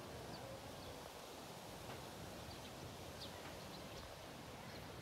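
Steady wind rustling through tree leaves, with a low rumble and faint, scattered bird chirps.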